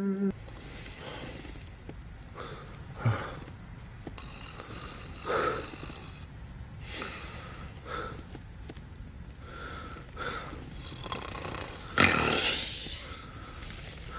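Men snoring in their sleep: irregular snores a second or two apart, the loudest near the end.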